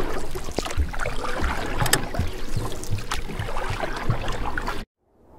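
Muffled underwater sound of swimmers in a spring pool, heard through a submerged camera: bubbling and splashing noise with clicks, and low thumps about three times a second from kicking. It cuts off suddenly near the end.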